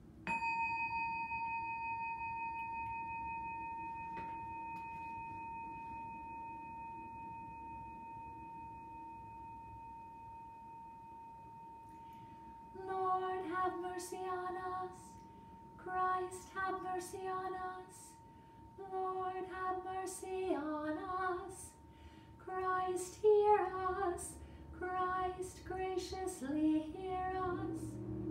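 A chime struck once, its clear ringing tone slowly dying away over about twelve seconds. About thirteen seconds in, a woman begins chanting a litany in short sung phrases with pauses between them.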